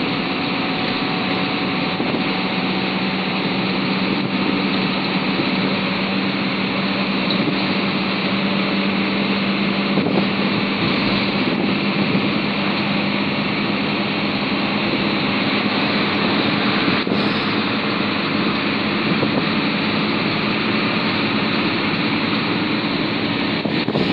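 Bus driving at speed, heard from inside the cabin: a steady mix of engine and road noise, with a low hum that fades out about halfway through.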